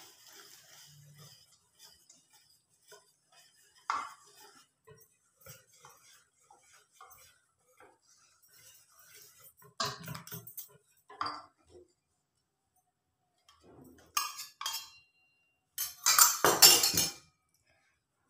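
Wire whisk knocking and clinking against a stainless steel mixing bowl as flour batter is mixed, in scattered single strikes a few seconds apart. Near the end there is a louder run of metal clattering.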